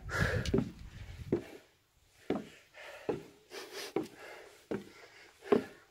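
Footsteps climbing deck-board stairs: a hiker's boots knocking on the treads at a steady pace, about one step a second.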